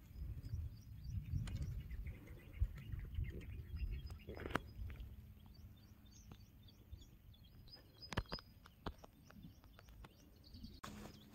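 Small birds chirping repeatedly in short high notes, over a low rumble on the microphone that is strongest in the first few seconds, with a few sharp clicks.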